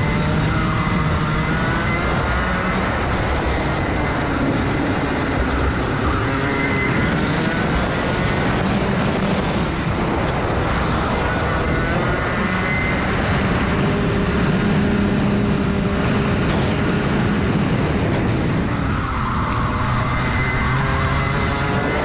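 Rotax Max Evo 125cc single-cylinder two-stroke kart engine at racing speed, its pitch rising and falling over and over as the revs build on the straights and drop for the corners, heard onboard the kart.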